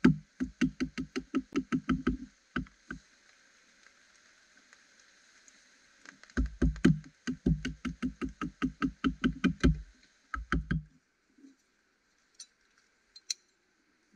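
Rapid rhythmic knocking, about five or six sharp strokes a second, in two runs with a pause of a few seconds between them.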